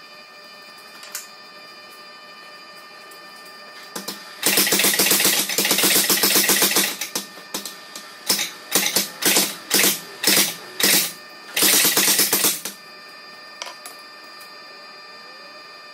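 A tire-type power hammer forging hot steel. It strikes rapidly in a sustained run about four seconds in, then in several short bursts, then in another run of about a second. A steady hum with held tones runs underneath.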